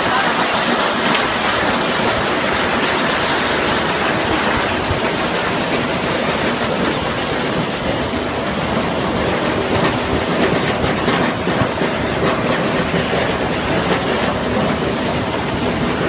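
Tractor-driven two-row potato harvester running: steady rattling clatter of its steel rod conveyors and potatoes tumbling over them. The clicking grows busier about ten seconds in.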